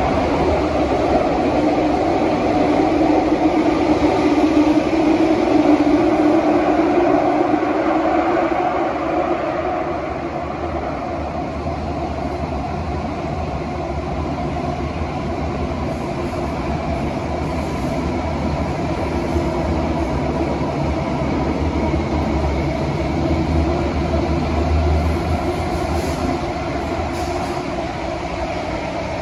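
Cabin running noise of a Kawasaki–CRRC Sifang CT251 metro train under way in a tunnel: a steady rumble and hum that is a little louder for the first ten seconds or so, then settles slightly quieter.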